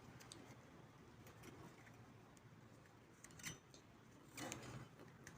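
Near silence with a few faint clicks and scrapes of the stabilizer link's rubber bushings and metal washers being handled and fitted by hand, the clearest about three and a half and four and a half seconds in.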